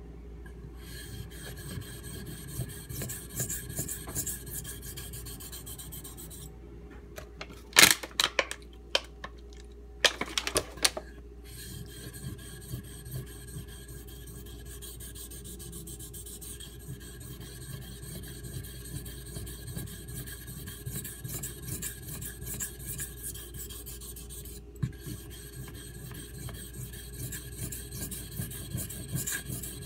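CPM 3V steel knife blade stroked repeatedly across a Shapton Pro whetstone: a rapid, steady scraping rasp. About a quarter of the way in the strokes stop for a few seconds, and several loud sharp clacks sound, before the scraping resumes.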